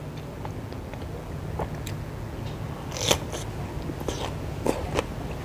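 A person biting into and chewing a piece of raw cucumber, with crisp crunches. The loudest bite comes about three seconds in, followed by a few smaller crunches.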